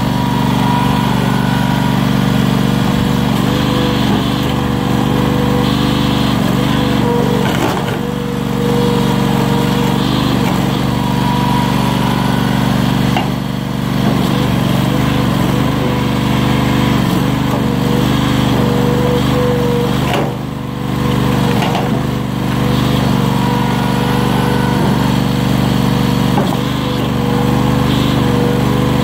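The 22 hp engine of a homemade hydraulic wood splitter running steadily, driving its 28 gpm pump, with a steady whine over the engine note. The sound dips briefly three times.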